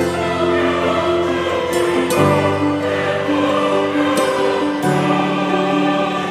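Background music of sustained chords, changing about two seconds and five seconds in.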